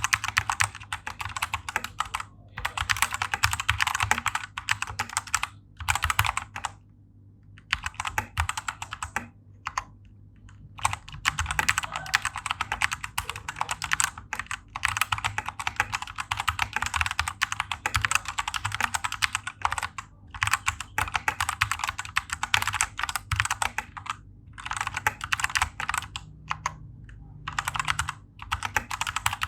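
Typing on a stock Vortex VX5 Pro mechanical keyboard with tactile Outemu Brown switches, factory-lubed. The keystrokes come in fast, dense runs broken by short pauses, the longest a little after six seconds in and around nine to ten seconds in.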